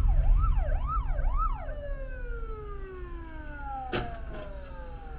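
Emergency vehicle siren wailing in quick rising-and-falling sweeps, then winding down in one long falling tone, over low road rumble. A single sharp knock about four seconds in.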